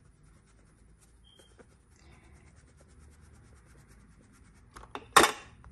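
Tombrown flour being sifted through a metal mesh sieve into a bowl: a faint, soft rustling of powder through the mesh. About five seconds in there is a sharp knock, with a smaller one just before it.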